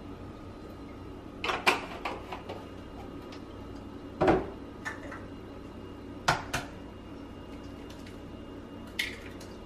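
Kitchen handling clatter: a few separate knocks of plastic containers and a blender jar being handled and set down on a countertop. The loudest is a dull thump about four seconds in, as a plastic gallon milk jug is set down.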